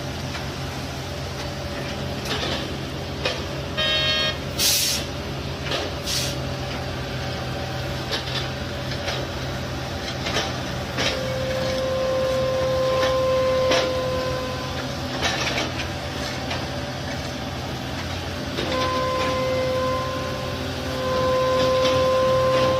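Heavy construction machinery running with a steady low engine drone, scattered knocks and clanks, and one short beep about four seconds in. A steady whine sounds in the middle and again near the end.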